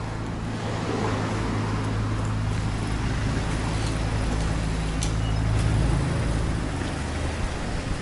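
Street traffic noise with a steady low engine hum.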